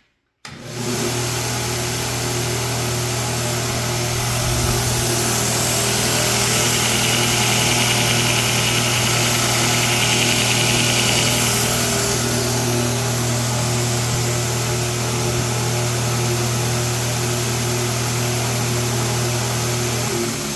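Belt grinder with a 1.5 hp, 3,600 RPM electric motor, switched on and running steadily with a hum and the hiss of the sanding belt. The motor cuts out just before the end and the machine winds down.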